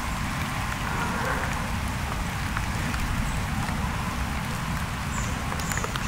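Steady rain falling in a forest, with scattered drops ticking over a low, even rumble.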